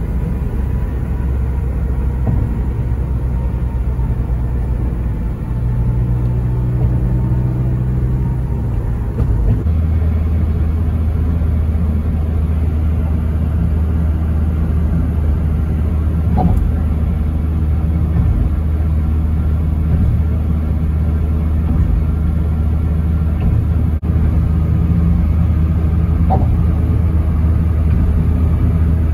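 A vehicle driving on the road: a steady low engine and road rumble that settles into a deeper, steadier hum about nine seconds in.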